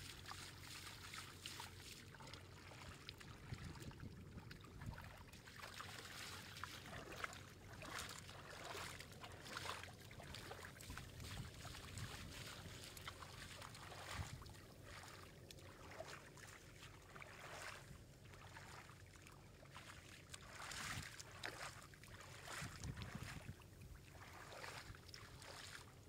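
Faint, irregular splashing and sloshing in shallow muddy water, with squelches of wet mud being worked and stepped in.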